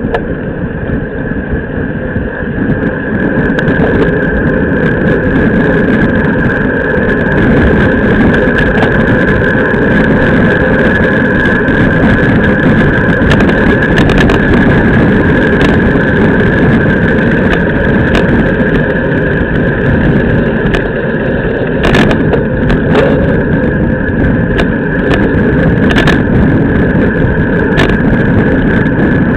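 Wind buffeting the microphone and tyre-on-asphalt rumble from a camera mounted on a racing bicycle at speed: a loud, steady rumble with a thin steady high hum, getting louder about three seconds in, with a few sharp clicks from bumps or the bike's mechanicals.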